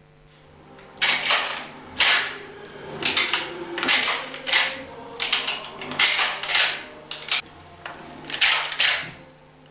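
Restored antique lever-action rifle's action being worked by hand: a series of short metallic clacks and rattles, about one or two a second, as the lever is swung open and shut.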